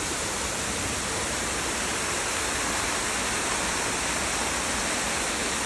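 Waterfall: a steady rush of falling water that cuts off suddenly at the end.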